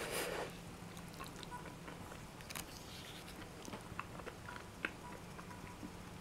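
Faint scattered clicks and soft squishy handling noises of chopsticks picking through creamy stir-fried shimeji mushrooms on a ceramic plate, with a brief rustle at the start, over a low steady hum.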